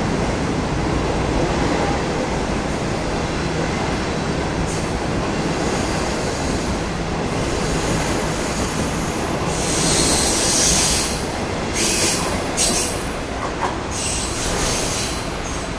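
Passenger train hauled by a DF11 diesel locomotive passing at speed: a steady rumble of wheels on rail, with bursts of high-pitched wheel squeal around ten seconds in and again a couple of seconds later.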